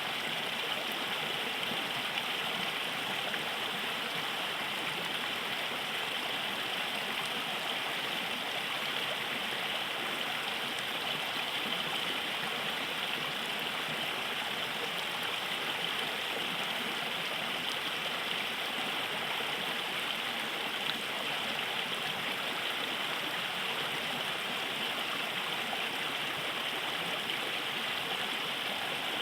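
River water flowing steadily over rocks, a continuous rushing and gurgling.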